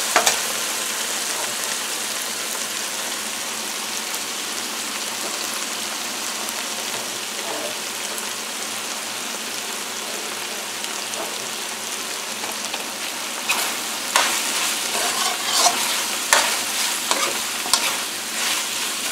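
Chicken pieces sizzling steadily in hot oil in a frying pan, their released juices already cooked off. From about thirteen seconds in, a metal spoon scrapes and clicks against the pan as the pieces and bell pepper strips are stirred.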